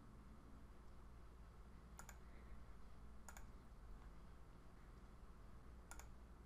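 Three faint computer mouse clicks over near-silent room tone: one about two seconds in, one a little over a second later, and one near the end.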